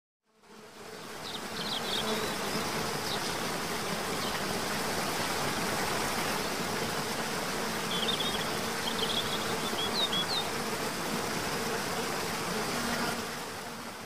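Waterfall rushing: a steady hiss of falling water that fades in at the start and fades out near the end. A few short, high bird chirps come about a second in and again around eight to ten seconds in.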